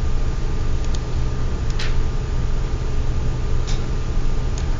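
Steady low electrical hum under four sharp, separate clicks from computer mouse and keyboard use, the second of them the loudest.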